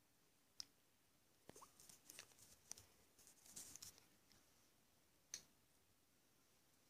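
Near silence: faint room tone with a few soft clicks and rustles, the sharpest click about half a second in and another about five seconds in.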